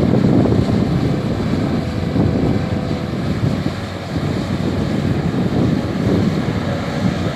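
Wind buffeting the microphone with a dense, uneven rumble, over the steady running of a CAT 320D excavator's diesel engine.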